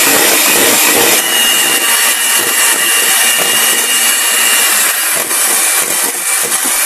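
Electric hand mixer running steadily, its twin beaters whisking egg whites in a stainless steel bowl, with a faint high whine in the middle. The whites are being beaten toward stiff peaks for meringue.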